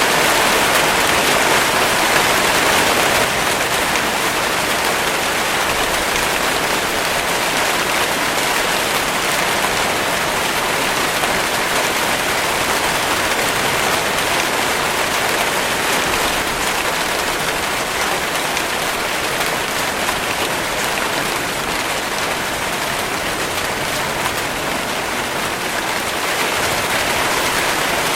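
Steady rainfall, an even hiss of rain on a surface, dropping slightly in level about three seconds in.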